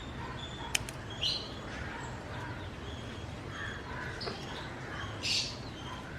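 Birds chirping in short, intermittent calls over a steady low rumble of outdoor background noise, with a sharp click under a second in and a brief hiss about five seconds in.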